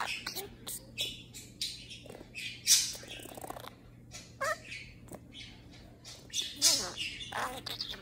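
Budgerigar chattering close up: a rapid, uneven run of short chirps, clicks and scratchy notes, with one sharply louder chirp a little under three seconds in.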